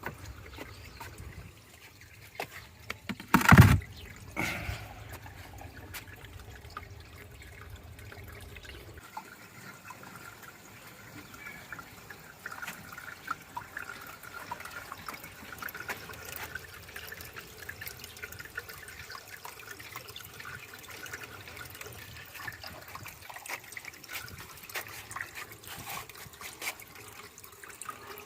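Aquarium water trickling and dripping, with a loud knock about three and a half seconds in and a smaller one a second later.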